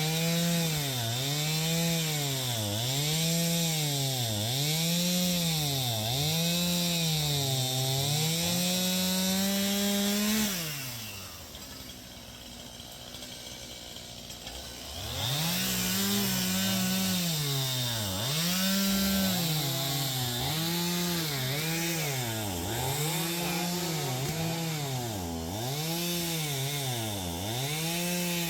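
Two-stroke chainsaw cutting through a log, its engine pitch dipping and recovering about once a second as the chain bogs under load. About ten seconds in it drops to idle for several seconds, then revs back up and goes on cutting.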